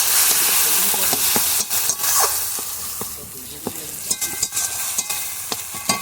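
Spice paste (masala) frying in oil in a kadai, sizzling as a spatula stirs and scrapes it, with scattered clicks of the spatula on the pan. The sizzle is loudest at first and dies down after about three seconds, as the masala cooks to the point where the oil separates.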